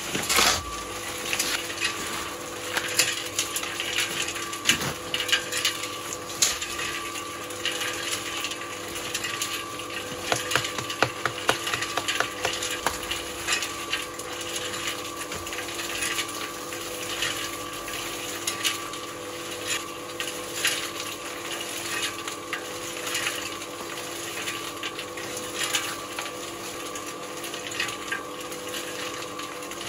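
Electric cement mixer running with a steady motor hum. A heavy strike comes right at the start, and irregular knocks and clatter of tools and containers follow throughout.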